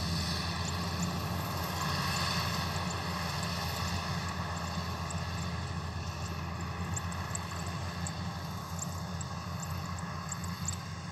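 Kubota DC-93 rice combine harvester running steadily in the distance as it cuts and threshes, a constant diesel drone that slowly fades. Short high chirps come through over it, more often in the second half.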